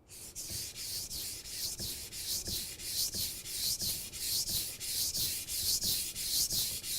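A steel kitchen knife blade being stroked back and forth on a wet whetstone, a rhythmic scraping hiss of about three even strokes a second.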